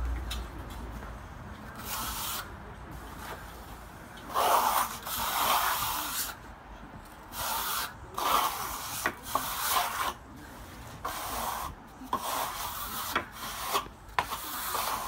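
Stainless steel trowel scraping across a smooth-finish stucco coat in a series of irregular strokes, each lasting about a second. This is the hard-troweling stage, where the drying plaster is worked over until the surface is smooth.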